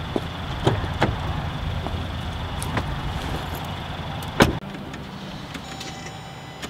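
Jeep Grand Cherokee door opened and shut with one loud thud about four and a half seconds in, over a steady low outdoor rumble with a few small clicks. After the thud the rumble stops and it is quieter inside the car.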